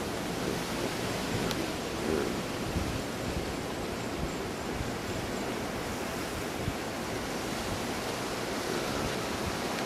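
Hurricane wind blowing through trees and shrubs, a steady rushing noise with no letup.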